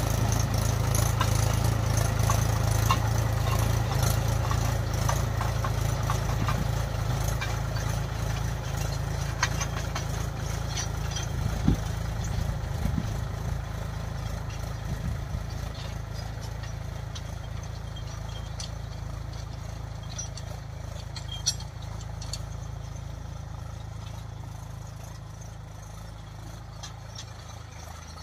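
Mahindra 275 DI tractor's three-cylinder diesel engine running steadily under load as it pulls a tine cultivator through dry field soil, fading as the tractor moves away. A few brief sharp clicks come near the middle.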